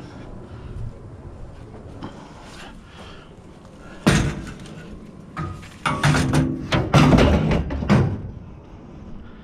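Scrap metal being handled: one loud bang about four seconds in, then a run of clanks and bangs with some ringing.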